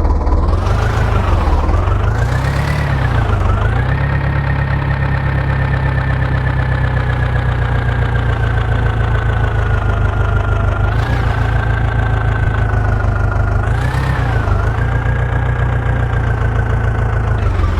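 Heavy diesel engine running steadily, its pitch rising and falling back several times as it is revved.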